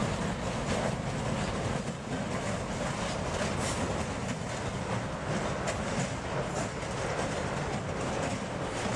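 A train running along the track: a steady rumble of wheels on rails, with faint clicking from the rail joints.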